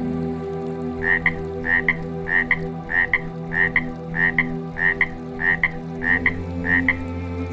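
A frog calling: a short double croak repeated evenly about ten times, roughly every 0.6 seconds, starting about a second in, over a steady low hum.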